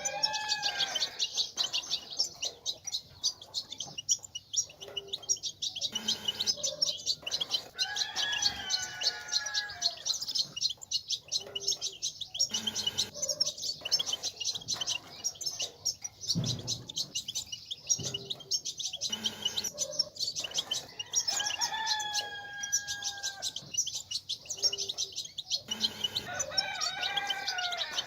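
European goldfinch twittering: a rapid, unbroken stream of high chattering notes, the 'bitbita' used to stir male goldfinches into song. A lower, longer bird call with gliding notes lasting about two seconds cuts in four times.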